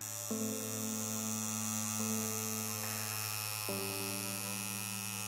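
Steady low electrical hum with a hiss over it.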